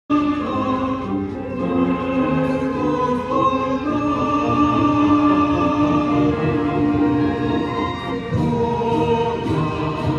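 A choir singing, with long held notes that change every second or two.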